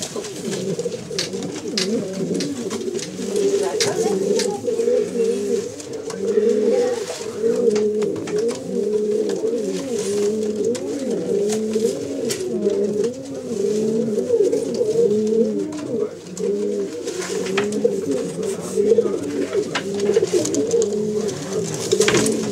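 Several domestic pigeons cooing continuously, their rising-and-falling coos overlapping at different pitches, with scattered sharp ticks among them.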